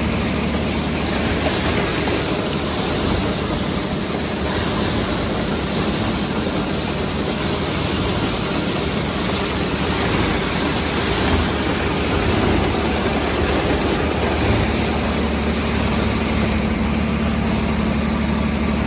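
Farmall 460 tractor engine running steadily under load, pulling an Allis-Chalmers All-Crop 72 combine harvesting soybeans, with the combine's machinery running alongside.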